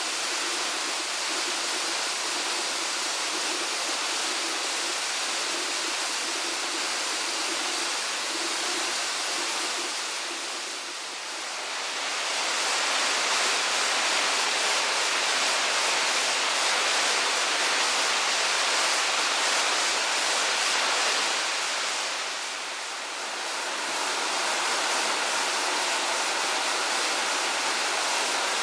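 Waterfall (the male fall of Tanashita Fudō Falls) rushing steadily, a constant roar of falling water. It dips briefly twice and returns a little louder each time.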